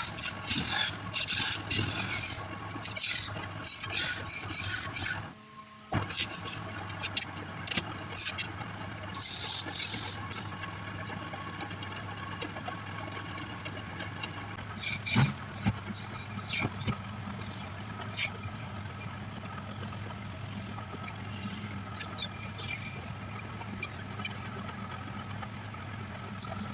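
Belt-driven wood lathe running with a steady motor hum while a hand gouge cuts a spinning wooden goblet blank, scraping in bursts that are heaviest in the first ten seconds. The sound cuts out briefly about five seconds in.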